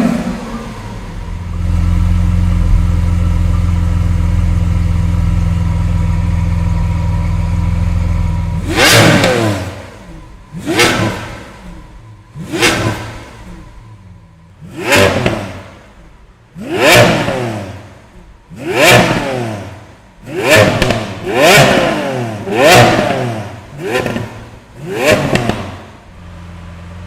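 Lamborghini Aventador SV's naturally aspirated V12 engine. It gives one sharp burst, then idles steadily and loudly. From about nine seconds in it is blipped up in about ten quick revs, roughly two seconds apart, each falling back in pitch, before settling to idle near the end.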